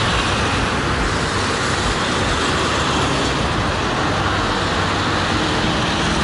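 Steady, loud rush of motorcycle and road noise with no clear engine note and no distinct events.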